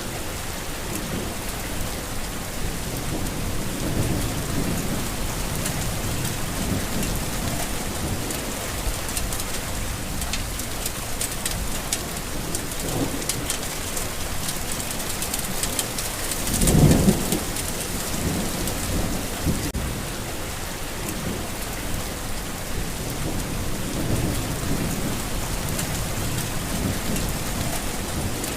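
Steady rain falling on a garden, with low rolls of thunder rumbling through it; the loudest thunder clap comes a little past the middle.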